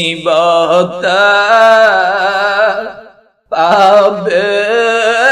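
A man singing a devotional qasida verse with a wavering vibrato, in two long drawn-out phrases with a short breath pause about three seconds in.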